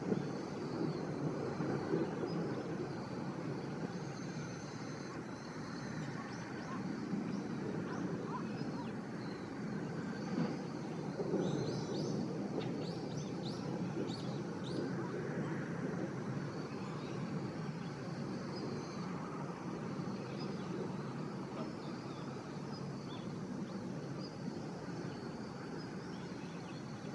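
Steady low drone of a distant engine, which the uploader suspects comes from a powered paraglider (paramotor) in the air.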